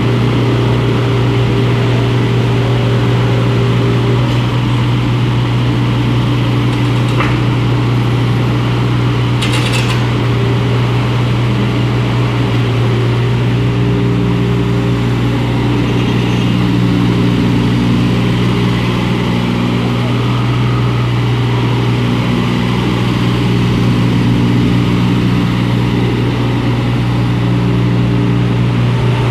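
IHI IS27F mini excavator's diesel engine running steadily, a constant low hum with higher tones that come and go as the machine works.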